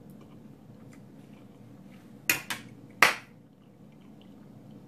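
Two sharp clicks a little under a second apart, the second louder and ringing briefly.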